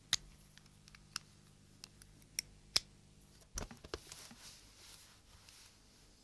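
Quiet handling sounds of a pistol: a few sharp, separate clicks, then a quick cluster of clicks and knocks about three and a half seconds in, followed by about two seconds of soft cloth rustling as a napkin is handled around the gun.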